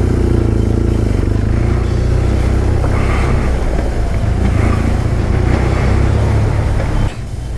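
Motorcycle engine running steadily at low speed as the bike rolls along a gravel track. The sound dips briefly near the end.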